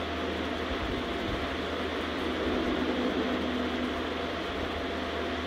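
Steady background hiss and low hum with a faint constant whine, unchanging throughout, with a few faint low rumbles about a second in and near the middle.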